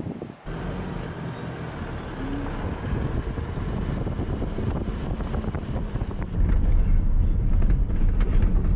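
Toyota Hilux 4WD driving: a steady rumble of engine and tyres that jumps louder about six seconds in.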